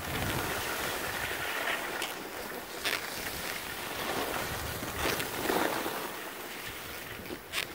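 Skis sliding and scraping over packed snow, with a steady rush of wind over the microphone; the scraping swells louder about three times as the skis turn.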